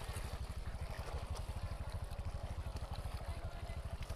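Small motorcycle engine running at low speed with a fast, even putter, while water sloshes and splashes around the bike as it rides through shallow floodwater.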